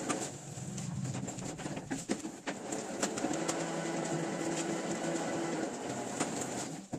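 Print-shop work sounds: large paper sheets rustling, flapping and being stacked in quick, irregular handling noises, over a steady low machine hum.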